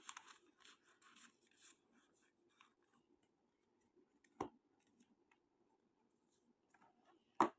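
Faint rustling of small stationery items being handled, then two short, sharp taps of objects being set down, about three seconds apart.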